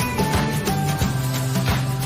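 Background music with a steady beat and a melody line.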